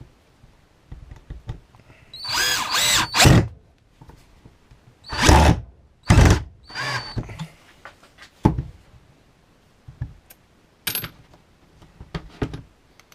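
Parkside 12 V cordless drill/screwdriver driving a long 125 mm screw in three short bursts, its motor pitch rising and falling with the trigger, followed by a few sharp knocks and clicks.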